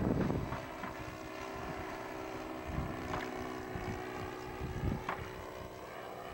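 Saito FA-80 four-stroke glow engine of a model airplane droning steadily in flight, turning a 13x6 propeller. Wind buffets the microphone in the first half second.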